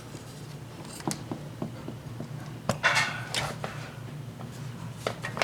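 Scattered light knocks and clicks with a brief scraping rustle near the middle, from washing-machine parts being handled during disassembly, over a steady low hum.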